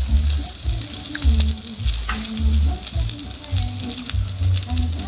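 Food frying and sizzling, with crackling spatter, over background music with a steady beat.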